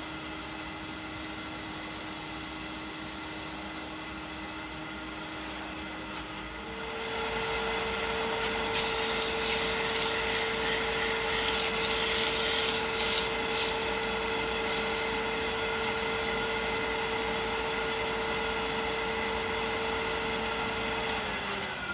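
Wood lathe motor running with a steady whine that steps up in pitch about six seconds in as the speed is raised, then starts to wind down near the end. A hand-held abrasive pad and polishing cloth rub against the spinning resin-and-burl bowl, making a hiss that is loudest in the middle.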